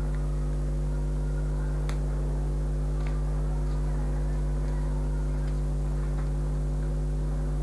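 Steady low electrical mains hum with a ladder of overtones, unchanging throughout, with a few faint ticks and clicks over it.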